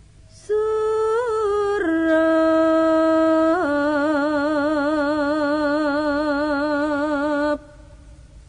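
A solo voice sings a slow melody in long held notes. It comes in about half a second in, steps down in pitch twice, and holds a final long note with a wide vibrato until it breaks off about a second before the end.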